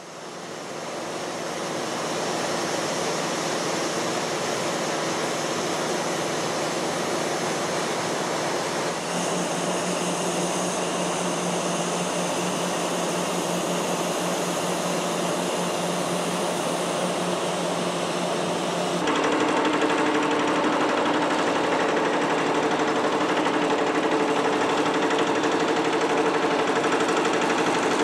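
Foundation drilling machinery with its diesel air compressors running steadily. The sound changes abruptly twice, and is slightly louder and more rhythmic in the last part.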